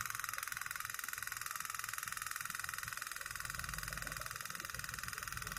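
Small vibrating motor on a homemade cardboard drawing robot running, with a steady buzzing rattle that pulses fast and evenly as the robot shakes itself along on its marker-pen legs.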